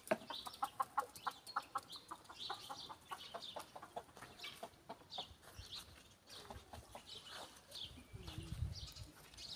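Chickens clucking faintly in quick runs of short notes, with higher chirps recurring throughout.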